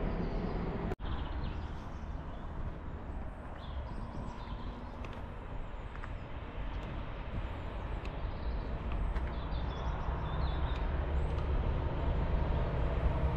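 Low, steady rumble of an approaching GBRf Class 59 diesel freight locomotive, growing louder toward the end, with a few birds chirping. The sound breaks off for an instant about a second in.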